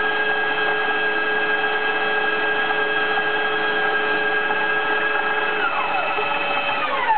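Two KitchenAid bowl-lift stand mixers creaming butter and sugar, their motors making a steady whine. About five and a half seconds in, one mixer is switched off and its whine falls away. Near the end the other mixer starts to wind down.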